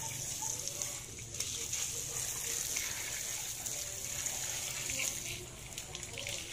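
A steady stream of water pouring into a plastic mesh basket and splashing across a wet concrete floor.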